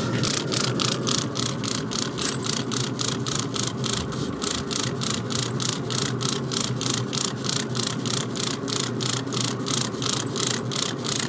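Spray bottle spritzing a brisket in quick, even squirts, about four a second, wetting the meat down so it builds a bark. A steady low hum runs underneath.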